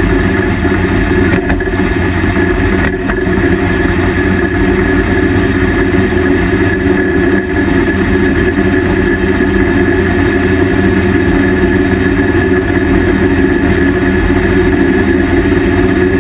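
Drag car's engine idling, recorded on board, loud and steady with no revving.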